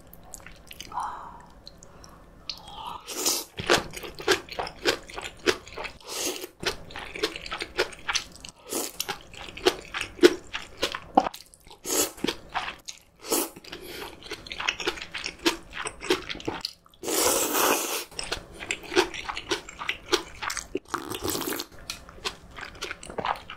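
Close-miked chewing and crunching of fresh spicy napa cabbage kimchi (geotjeori), with slurping of cold soybean-milk noodles (kong-guksu). The crisp crunches start a few seconds in and keep on in quick succession.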